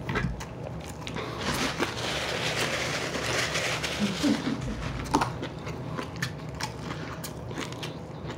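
Close-miked chewing of a mouthful of chicken wing, with small crunches and clicks. A stretch of paper napkin rustling comes in the middle.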